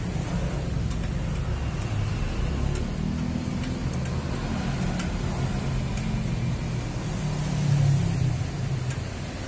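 Low, wavering rumble of road traffic, swelling briefly near the end, with a few faint metallic clicks from a wrench tightening the exhaust mounting bolts.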